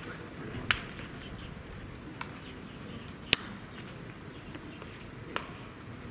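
Open ballpark ambience with a few faint scattered clicks, and one sharp, loud crack of a pitched baseball's impact about three seconds in.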